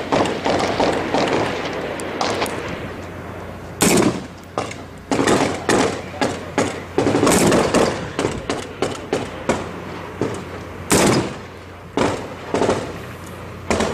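Small-arms gunfire in a firefight: irregular single shots and quick runs of shots, a few very loud and close, others fainter and farther off.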